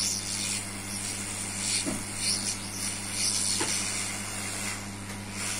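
Steady hiss of air with a low electrical hum underneath, and a couple of faint clicks.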